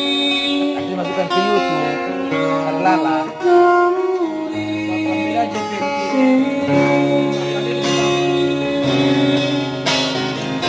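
Live music: a man singing over his own guitar, played through a small portable speaker.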